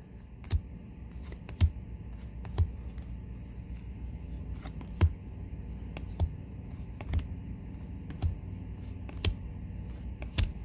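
Trading cards being handled one at a time, with a sharp tap about once a second as each card is flipped or set down, over a low steady hum.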